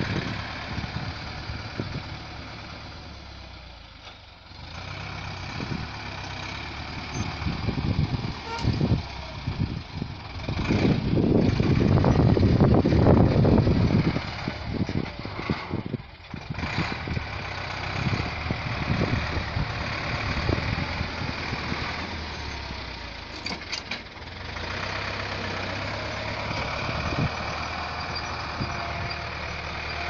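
Tractor engine running steadily as it pulls a disc plough through dry soil, swelling into a louder, rougher stretch for a few seconds near the middle.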